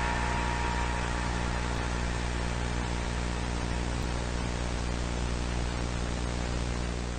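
Steady static hiss over a low buzzing hum, easing off slightly toward the end.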